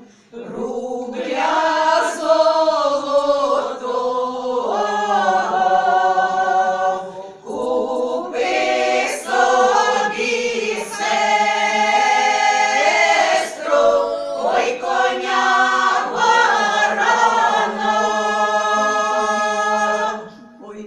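Women's folk choir singing a Ukrainian folk song a cappella in several parts, in long held phrases with short breaks between the lines.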